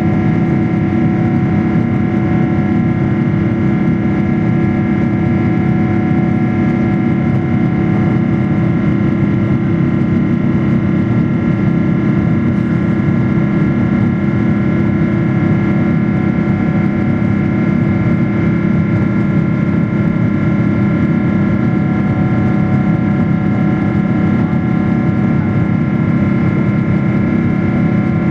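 Cabin noise inside a Boeing 777-300ER in flight: its GE90 turbofan engines and the airflow make a steady rush with several constant whining tones, unchanging throughout.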